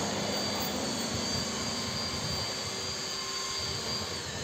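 Steady machinery drone on a construction site, even throughout, with a faint high whine running over it.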